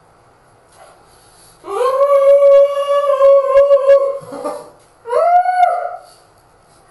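A long, high howl held for about two and a half seconds, followed about a second later by a shorter howl that rises and falls.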